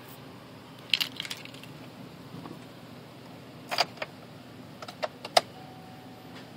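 Ignition keys jangling and clicking as the key is put in and turned to the on position, several sharp metallic clicks with the loudest near the end; the engine is not running. A faint steady tone comes in near the end.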